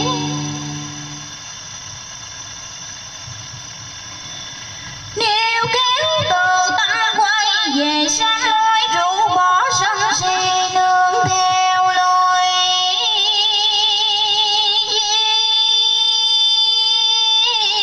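Vietnamese vọng cổ (cải lương) singing. After a soft lull of about five seconds, a solo voice comes in and sings long, ornamented held notes with wide vibrato.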